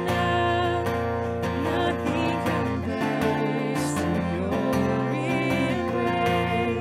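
A worship song played live through loudspeakers: a strummed acoustic guitar with a singing voice.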